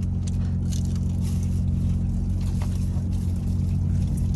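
Steady low hum of an idling car heard from inside the cabin, with light clicks and crinkles of takeout food being handled and eaten.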